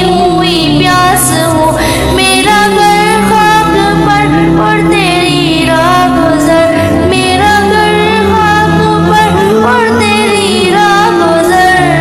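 A devotional naat sung with a winding melody over a sustained low accompaniment that shifts pitch every few seconds.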